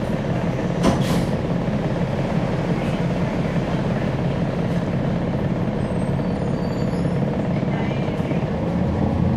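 Interior sound of a 2011 NABI 40-SFW transit bus: its Cummins ISL9 diesel engine running steadily, with a sharp click about a second in and faint high squeaks later.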